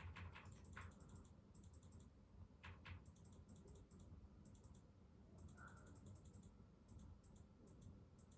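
Near silence with faint scattered clicks and a few light taps, most of them in the first second and around three seconds in.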